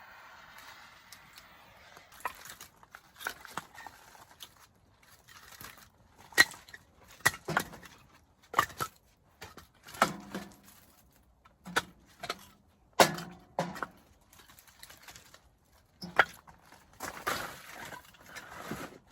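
A series of irregular knocks and clicks, about a dozen, some with a dull thud under them, with quiet gaps between.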